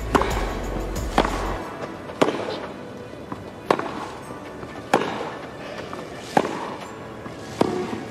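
Tennis rackets striking the ball in a grass-court rally: a serve and then shots back and forth, seven sharp hits spaced about a second and a quarter to a second and a half apart. Music from the clip before fades out about a second and a half in.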